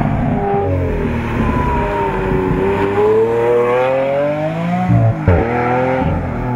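Lamborghini Aventador LP700-4's V12 engine pulling hard as the car passes and drives away, its pitch rising for a few seconds. About five seconds in the pitch drops sharply at a gear change, with a single sharp crack.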